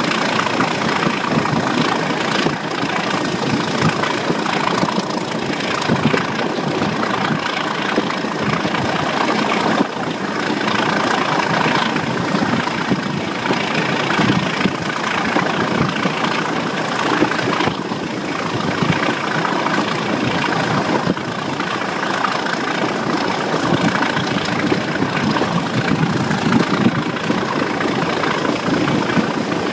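Class 37 diesel locomotive's English Electric 12CSVT V12 engine running steadily, heard from a coach window of the train it is hauling, mixed with wheel-on-rail noise and rushing air.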